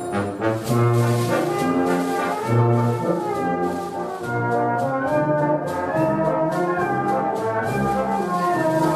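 Colliery brass band playing sustained brass chords over a bass line that moves from note to note about once a second.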